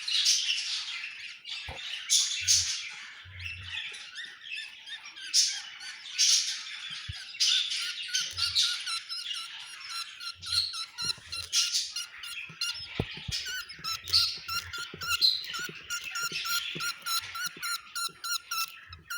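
Budgerigars chattering and squawking in high, scratchy calls, with a fast run of short repeated squeaky cheeps through the second half.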